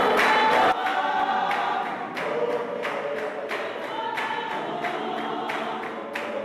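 Church choir of men and women singing together, unaccompanied, with hand claps keeping time. The singing is louder for the first moment, then drops a step and carries on steadily.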